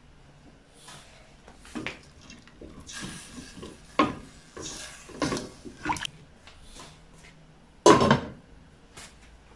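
A wooden spatula knocks and scrapes against a stainless steel pot as chicken pieces are turned in the broth, giving a run of irregular clunks and wet sloshes. About 8 s in, a glass pot lid is set down on the pot with a loud clank.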